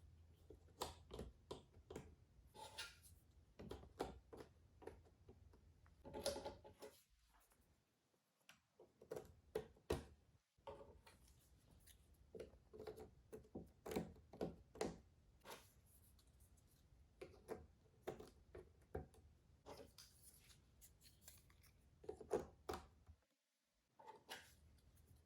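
Cardboard jigsaw puzzle pieces being handled: quiet, irregular clicks, taps and light rustling as pieces are picked up, slid and pressed into place, with a few brief cuts to silence.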